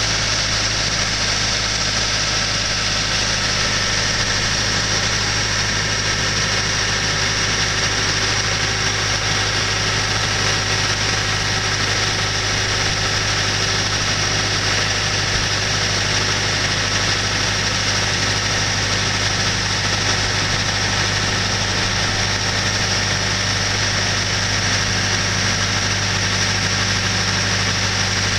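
Mobile boat hoist's engine running steadily with an even hum as it lowers a yacht in its slings.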